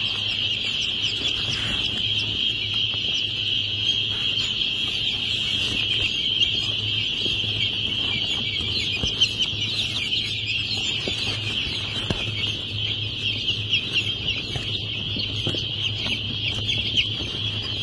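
Silver Spangled Appenzeller Spitzhauben chickens clucking and calling, over a steady high-pitched hiss and a low hum.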